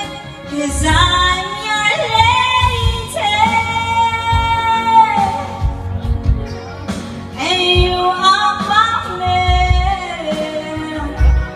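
A woman singing karaoke into a microphone over a backing track with a steady beat, in two long phrases with drawn-out, wavering notes.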